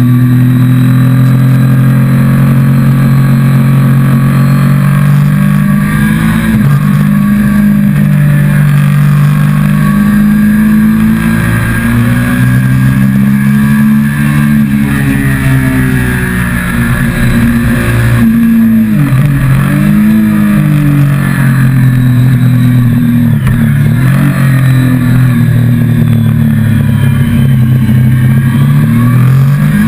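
Motorcycle engine heard from on board the bike while riding, pulling hard and climbing in pitch, then easing off, with a sharp drop and quick climb in pitch about nineteen seconds in, and pulling up again. A low rumble of wind and road noise runs underneath.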